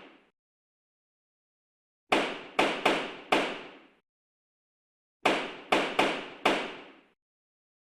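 Judge's wooden gavel striking its block: two runs of four quick raps, about two to three a second, the second run about three seconds after the first, each rap dying away quickly.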